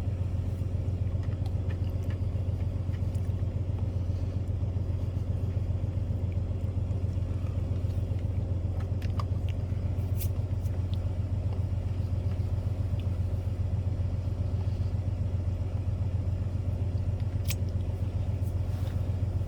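A steady low hum runs throughout, with a few faint crunches of crackers being chewed.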